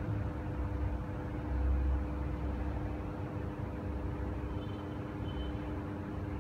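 Steady low rumble with a constant mechanical hum, with a faint brief high tone about two-thirds of the way in.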